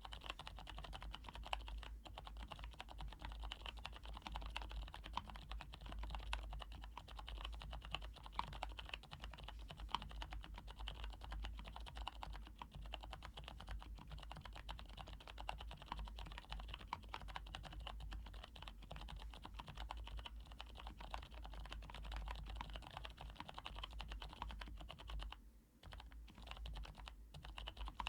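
Continuous fast typing on a plateless Cherry G80-3000 mechanical keyboard with lubed 'jailhouse' switches (Cherry MX Blue housings and stems with O-rings), a dense stream of keystroke clicks with a brief lull near the end.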